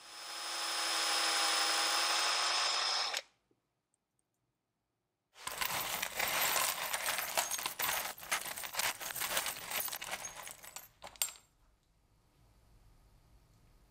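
A hand rummaging through a metal tray of loose screws, washers and small metal parts: a dense, continuous jangling and clinking that stops about eleven seconds in. Before it, a steady pitched whir lasts about three seconds and cuts off abruptly.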